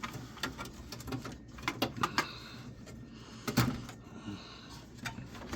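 Irregular clicks and knocks of plastic and metal as cables and parts are worked loose inside an old desktop computer case, with short scraping sounds between them and one louder knock about three and a half seconds in.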